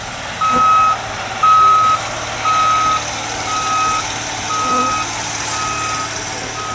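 Vehicle backup alarm beeping steadily, one high-pitched beep about every second.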